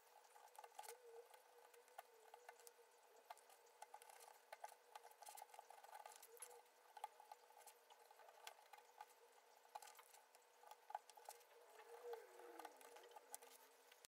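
Near silence with faint, scattered scratches and small clicks of a blade cutting a thin mica sheet, over a faint steady hum.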